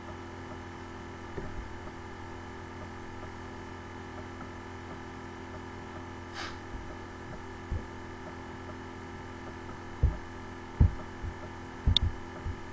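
Steady electrical hum with no speech, broken near the end by a few dull low thumps, one of them with a sharp click.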